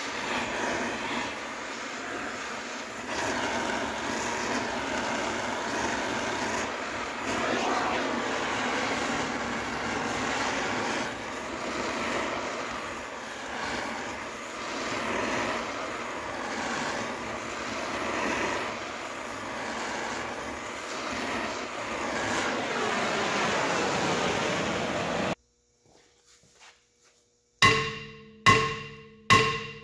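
Oxy-acetylene torch flame burning steadily against a steel wheel hub, a continuous rushing noise that stops abruptly about 25 seconds in. A few seconds later a marimba-like tune of struck notes begins, about one note every 0.7 seconds.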